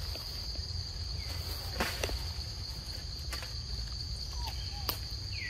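Steady high-pitched drone of forest insects, broken by a few sharp clicks and, near the end, several short high squeaks from macaques, the last one falling in pitch.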